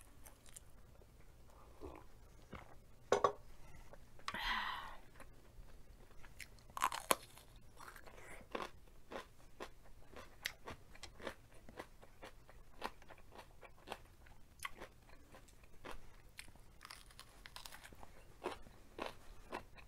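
Close-mic eating sounds: chewing and crunching food, a steady run of small wet mouth clicks and crunches, with a few louder bites about three and seven seconds in. Among them are bites into a crisp piece of raw red vegetable.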